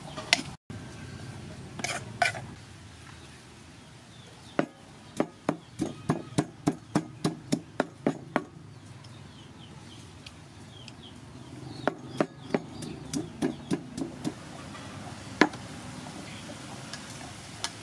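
Rhythmic knocking of food preparation, about three strokes a second, in two runs, with a few single louder knocks in between.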